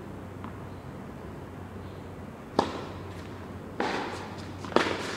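Tennis ball bouncing on an indoor hard court and being struck by rackets. A few faint bounces come first, then a sharp hit about two and a half seconds in, followed by two more loud, echoing hits about a second apart near the end.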